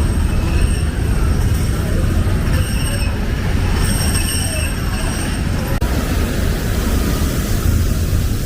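Disneyland monorail train coming into the station: a steady low rumble with a high-pitched whine that comes and goes several times.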